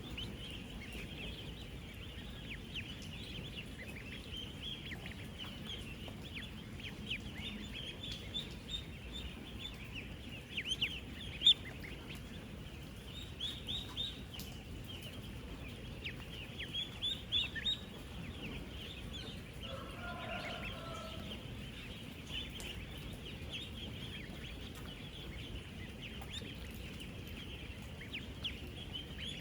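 Dense chorus of thousands of 10-day-old ducklings peeping, many short high calls overlapping into a continuous chatter, with a few louder peeps near the middle. About two-thirds through, a lower, longer call from a larger bird sounds briefly.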